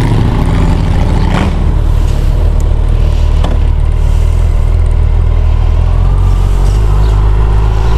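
Suzuki Hayabusa's inline-four engine running steadily at low revs, with the bike creeping along in slow traffic on a feathered clutch.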